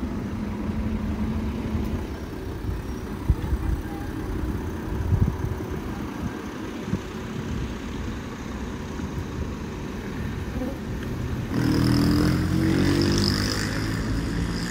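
Street noise in a car park with a low rumble and a few knocks. Near the end a motor vehicle passes close by for a couple of seconds, louder, its engine note shifting in pitch.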